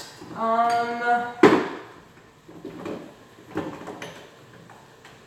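Knocks and clacks of a kitchen cabinet and spice jars being handled while spices are gathered. The loudest is a sharp knock about a second and a half in, followed by a few fainter ones.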